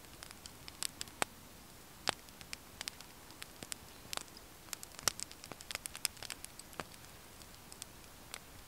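Small wood fire burning in a compact camp stove, crackling with scattered sharp pops and ticks, several a second at no steady rhythm.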